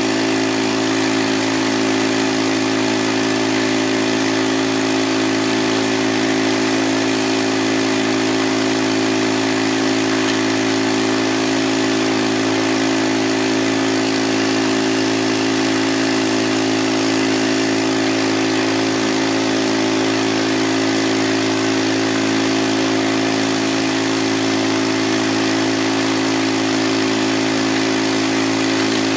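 Small gasoline engine on a floating gold dredge running steadily at constant speed, driving the dredge's water pump.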